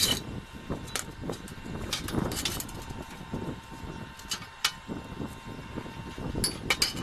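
Steel shovel blade and tube handle pieces clinking and knocking against a steel welding table as they are moved and set down: a few sharp metallic knocks spread apart, with a quick cluster near the end, over a low background rumble.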